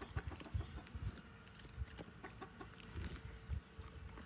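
A dog tearing and chewing grass: soft, irregular crunches and low thuds.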